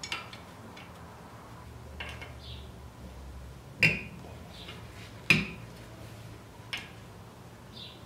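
Scattered light metallic clinks and taps of a small rotor retaining bolt and hex key against the brake rotor and hub as the bolt is threaded in by hand, with two louder clinks about four and five seconds in.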